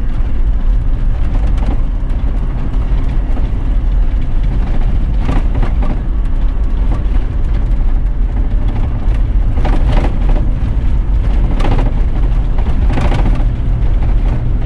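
A vehicle driving on an unsealed outback dirt track: a loud, steady low rumble of engine and tyres, with several short clattering knocks a few seconds apart.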